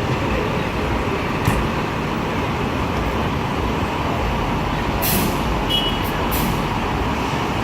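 Fire engine's engine running amid steady city traffic noise, with two short air-brake hisses about two-thirds of the way through.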